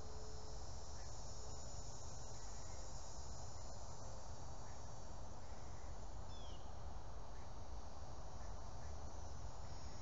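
Insects singing in a steady high-pitched drone over a low rumble, with one brief falling chirp about six and a half seconds in.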